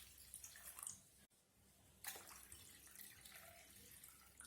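Faint water pouring into a bowl of kneaded wheat dough, in two stretches: the first fades out about a second in, the second starts about two seconds in.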